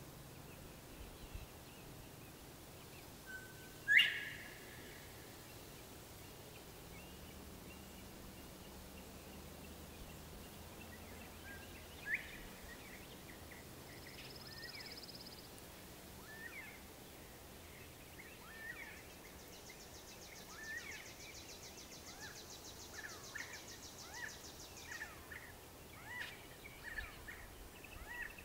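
Northern bobwhite whistling twice, about 4 s and 12 s in: a short low note rising into a sharp upslurred whistle, the first louder. Softer short chirps and a high buzzing trill follow in the second half.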